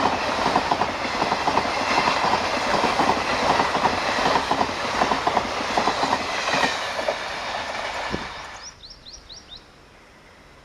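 Express train coaches rushing past at speed, their wheels clattering over the rail joints in a fast, regular clickety-clack. Near the end the sound drops away suddenly to a quiet background, with a quick run of short, high, falling chirps.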